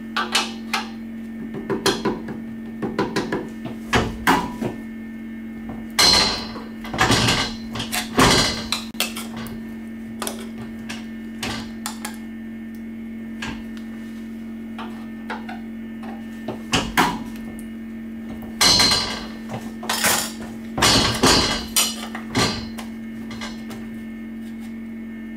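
Sharp metallic clanks and knocks in several clusters as an aluminium plate is slid, shifted and seated against the clamping fingers of a sheet-metal brake, with quieter stretches between them.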